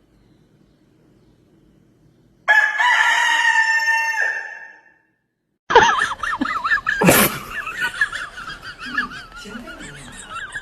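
A loud, held animal call lasting about two seconds and then fading. After a short gap comes a stretch of wavering, overlapping calls, with one sharp knock partway through.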